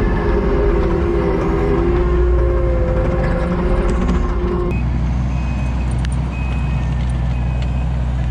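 Skid steer's diesel engine working under load with a steady hydraulic whine. A little over halfway through the sound changes abruptly to a lower steady engine drone with a reversing alarm beeping repeatedly.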